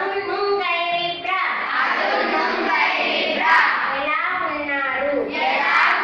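A class of schoolgirls reciting aloud together in a drawn-out, sing-song chorus.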